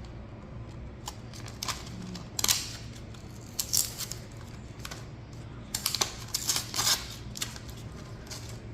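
Scattered small clicks, taps and short rustles of hands handling a 2.5-inch drive and its packaging, over a steady low hum. The loudest cluster of clicks comes about two-thirds of the way through.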